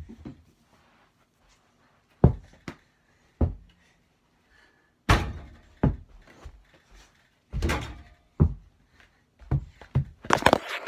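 Mini basketball thudding against an over-the-door hoop's backboard and the door and bouncing on the floor: a string of separate thuds and knocks a second or more apart, thickening into a quick cluster of knocks near the end.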